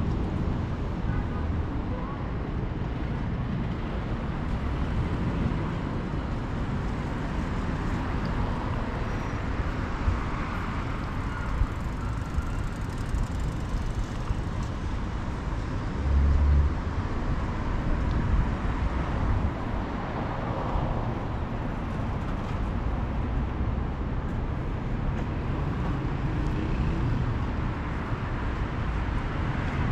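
Street traffic ambience: steady road noise from cars on a city street, with vehicles swelling past now and then and a brief low rumble about halfway through.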